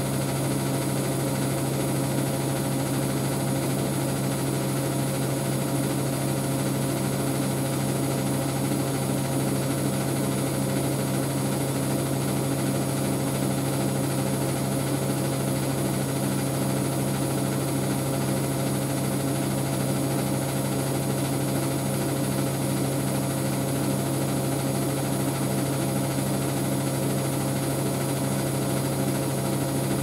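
Siemens Siwamat IQ 716 washing machine running with a steady, even motor hum and a light regular pulsing.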